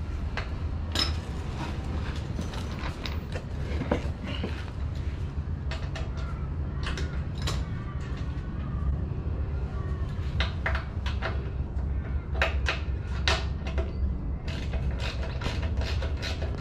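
Scattered sharp metallic clicks and clinks of hand tools and bolts being worked on a generator frame, coming in a quicker run near the end, over a steady low hum.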